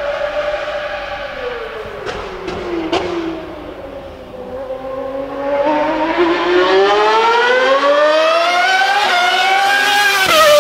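1995 Ferrari 412 T2 Formula 1 car's 3.0-litre V12 at high revs, a piercing, siren-like note. Its pitch falls over the first few seconds, with three sharp cracks in the middle of that fall. It then climbs steadily as the car accelerates toward and past, with a brief step near the top, and drops sharply right at the end as it goes by.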